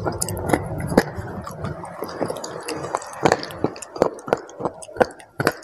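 Close-miked eating of a chocolate bar: crisp snapping bites followed by irregular crunching and chewing clicks, a few per second.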